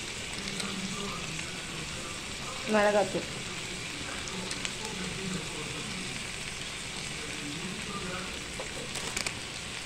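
Pieces of mutton sizzling steadily in oil in a pan, with spice powder sprinkled over them. A few light clicks come near the end.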